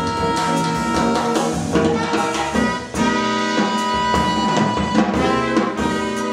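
Live jazz combo playing the closing bars of a tune: saxophone and trumpet lines over upright bass and drum kit, with repeated accented drum hits and a final accented hit at the very end.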